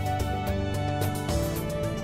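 Background music: a gentle instrumental track with held notes and a plucked guitar-like part.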